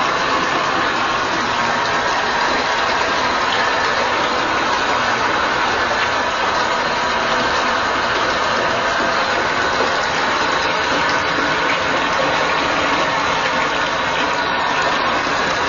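Steady, loud rushing of water in a bathtub, unbroken throughout, with a machine-like hum under it.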